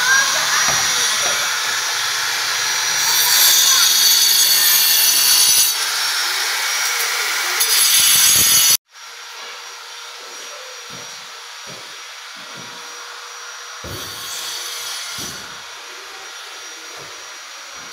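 Handheld angle grinder cutting ceramic tile, with two loud, high-pitched stretches of cutting. About halfway through it cuts off suddenly, giving way to the quieter rasp of hand scrapers taking old paint off a plastered wall in separate, uneven strokes.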